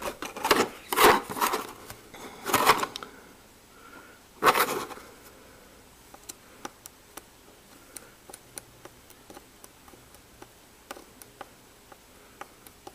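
Knocks and rubbing of a circuit board being handled and turned on the bench, several in the first few seconds. Then faint, light ticks, irregular at about one or two a second, as a fine-tipped soldering iron touches the pins of a surface-mount chip one at a time.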